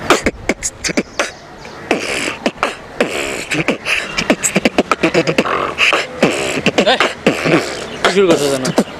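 A man beatboxing: a fast run of sharp mouth clicks and percussive hits mixed with short gliding vocal tones.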